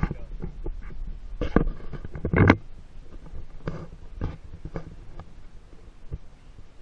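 Irregular knocks and rustles from a handheld action camera being moved around, over a low wind rumble on the microphone; the loudest knocks come about a second and a half and two and a half seconds in.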